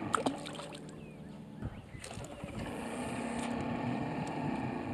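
A boat's outboard motor running with a steady low hum that grows a little louder about halfway through, with a few sharp clicks near the start.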